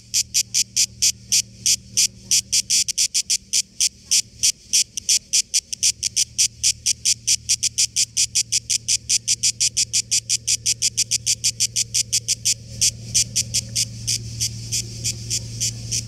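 Cicada singing close up: a loud, even, rapid series of buzzing pulses, about five or six a second, that starts abruptly.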